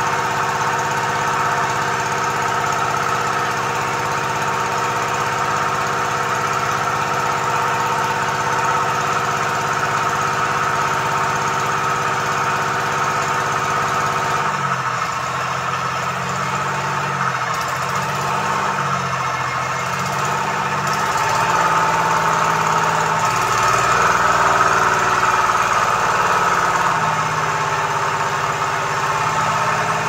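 Komatsu 3D84 three-cylinder diesel engine of a PC20 mini excavator running and smoking heavily, an engine with low power, black smoke and hard starting. It runs steadily for the first half, then its note wavers and it grows a little louder later on.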